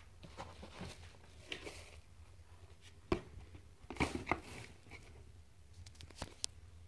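A cardboard box and a bubble-wrapped power supply being handled: crinkling rustles and several sharp knocks, the loudest about three seconds in and a cluster around four seconds.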